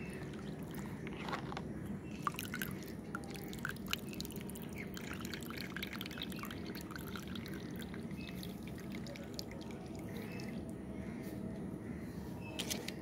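Water dripping and splashing as a plastic toy animal is lifted out of a tub of soapy water, with a few light taps near the end.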